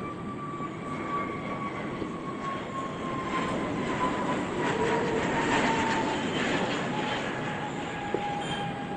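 Jet airliner engines: a steady rush with a whine that slides slowly down in pitch.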